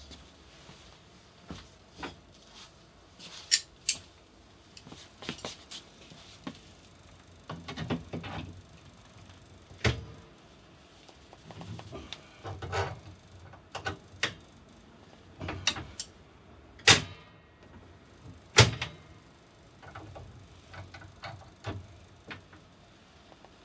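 Irregular metallic clicks, clinks and rattles of pliers working on an M6 threaded rod fitted through a table saw's rip-fence lock lever, with a few sharper clacks, the two loudest about a second and a half apart past the middle.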